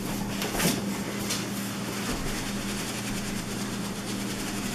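Cardboard shipping box scraping and rustling as it is tipped and slid up off the boxed vacuum inside, a few short strokes in the first second and a half, over a steady low hum.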